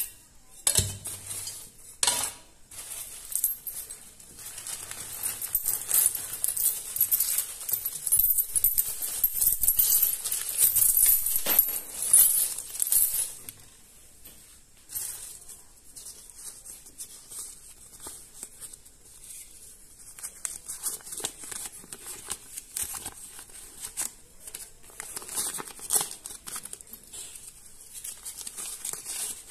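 Coins clinking and folded paper banknotes rustling as hands spread and sort the money spilled from a broken clay coin bank. A few sharp clinks come near the start, and the rustling is densest in the first half.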